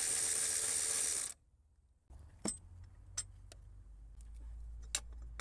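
A power tool runs loudly and steadily on the coolant-pipe bolt, then stops abruptly about a second in. After a short pause come scattered light metallic clicks and clinks as the bolt is worked out.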